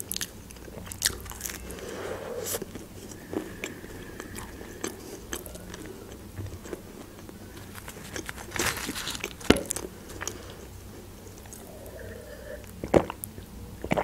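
Close-miked biting and chewing of pide, a Turkish flatbread with a minced-meat topping, with crisp crunches from the crust; the loudest bites come about two-thirds of the way in.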